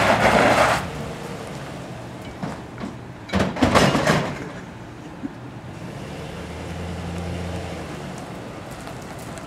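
Pickup truck (2007 Chevrolet Silverado) being driven past and away along the street on a road test. Engine and tyre noise come with a loud burst of noise at the start and another about three and a half seconds in. A steadier low engine hum follows later.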